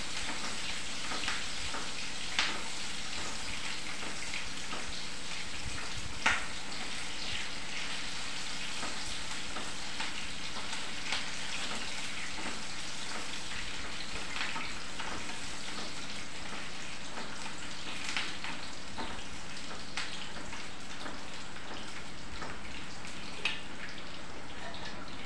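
Onions frying in hot oil in a kadhai: a steady sizzling hiss, the pan still wet with the onions' raw moisture being cooked off. A few sharp clicks of a spatula against the pan, the loudest about six seconds in.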